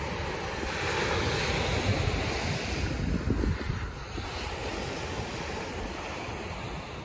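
Ocean surf breaking and washing up a sandy beach, swelling and easing, with wind buffeting the microphone.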